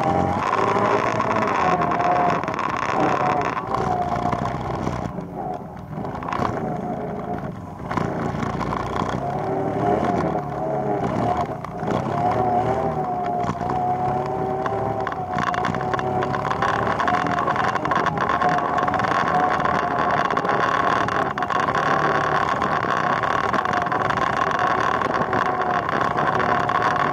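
ATV engine running under way, its pitch wavering with the throttle. It eases off a few seconds in and again briefly around twelve seconds, then pulls steadily.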